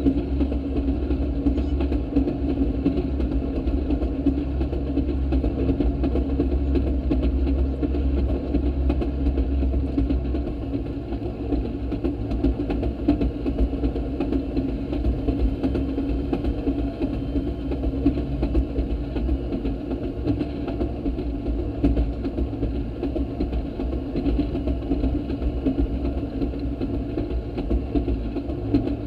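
Railroad speeder (track motorcar) running steadily along the rails: its small engine and a low rumble of wheels on track, with faint short clicks throughout. The deepest part of the rumble eases about ten seconds in.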